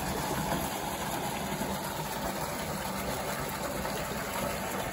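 Tubewell water pouring from its outlet pipe into a concrete tank: a steady splashing rush with a low rumble underneath.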